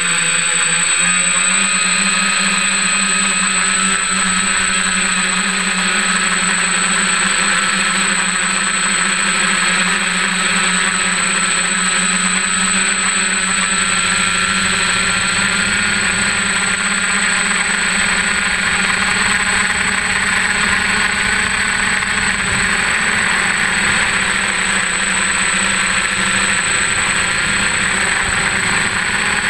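F550 hexacopter's six brushless motors and propellers whirring steadily in flight, a constant hum with a higher whine above it, heard close up from a camera mounted on the frame.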